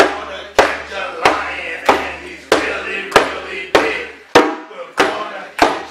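Hand drum struck in a steady beat, a sharp slap about every 0.6 seconds, with a singing voice over it.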